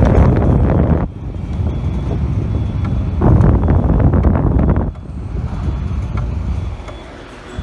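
Tower fan blowing air straight onto the microphone: a loud rush of wind noise that swells and falls, strongest near the start and again from about three to five seconds in.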